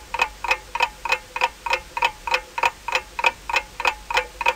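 Ticking timer sound effect counting down thinking time for a quiz question: an even run of sharp ticks, about four a second, each with a slight ring.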